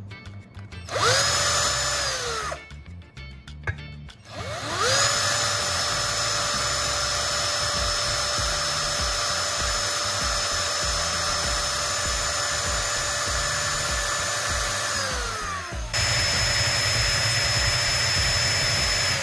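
Electric hand drill with a twist bit boring into a metal bar: the motor whines up to speed for a short burst about a second in, winds down, then spins up again and runs steadily for about ten seconds before winding down. For the last few seconds it runs louder and harsher. Background music plays underneath.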